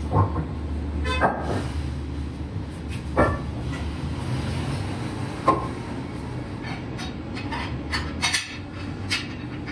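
Hand tools knocking and clinking during work inside a large tractor tire: single sharp knocks every second or two, then a quicker run of clicks near the end, over a steady low hum.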